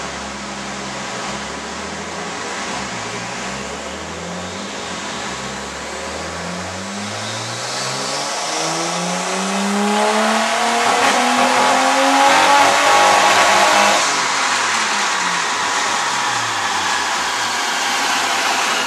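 Nissan Skyline R33 GTS-t's turbocharged straight-six engine running. After a steadier stretch, its revs climb smoothly for several seconds to a loud peak past the middle, then ease off and fall.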